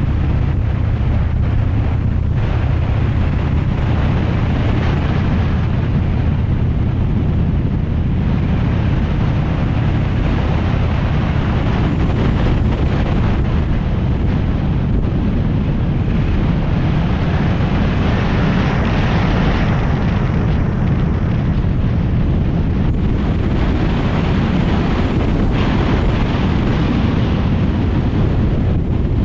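Motorcycle engine running steadily at cruising speed, mixed with wind rushing over the microphone.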